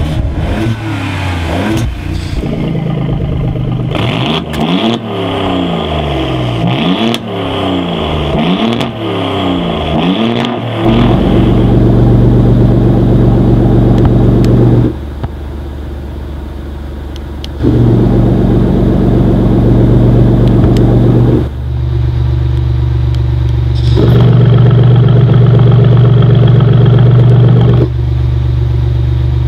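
Alfa Romeo Giulia's twin-turbo V6 through a titanium sports exhaust with active valves. It is revved up and down several times, then holds a steady note. That note steps between loud and noticeably quieter every few seconds as the exhaust valves are switched open and shut by remote.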